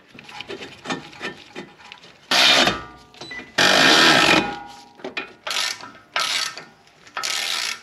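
Cordless electric ratchet running in five short bursts, the longest about a second, driving in the brake caliper bolts on a front hub, with faint tool clicks between bursts.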